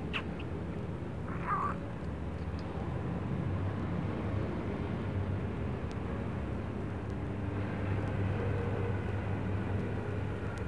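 A steady low rumble with a hum in it, with a short higher sound about a second and a half in.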